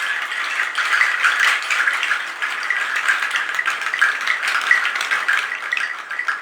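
Efeito jatobá, a homemade rattle of jatobá tree seeds, shaken steadily: a dense rustle of many small seed clicks that imitates the sound of running water. It eases off slightly near the end.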